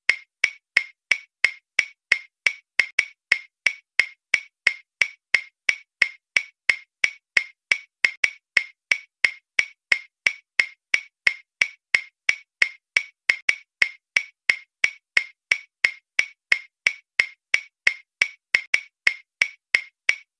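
Steady timer ticking sound effect: sharp, evenly spaced ticks, about two and a half a second, counting down the time given to answer the questions.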